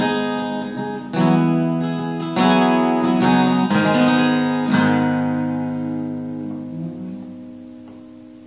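Acoustic guitar strumming the closing chords of the song, the last chord struck about five seconds in and left to ring out and fade away.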